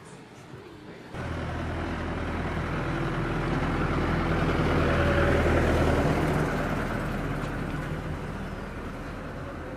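Engine of a tourist road train running, cutting in about a second in, growing louder to a peak in the middle and then fading as it passes.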